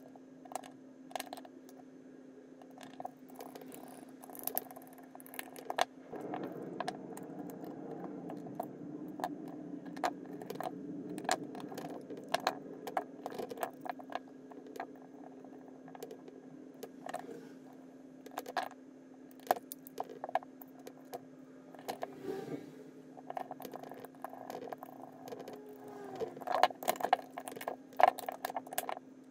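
Hand reassembly of a Milwaukee laser distance meter: scattered light clicks and taps of small plastic parts and a micro screwdriver as a screw is driven and the circuit board is fitted into the plastic case. The clicks grow busier and louder near the end as the case halves are pressed and snapped together.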